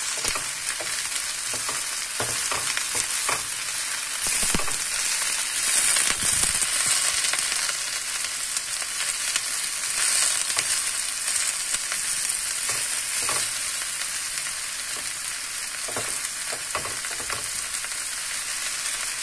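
Chopped spinach with onion and garlic sizzling in hot oil in a frying pan, a steady hiss, while a wooden spatula stirs it, scraping and knocking against the pan now and then.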